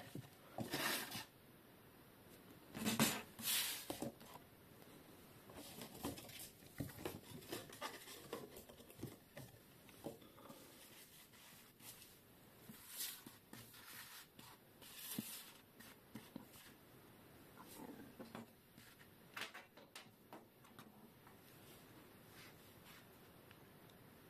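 Close handling noise of hands working with small objects: scattered light clicks, taps and rustles. They are a little louder about a second in, around three to four seconds in, and twice more near the middle.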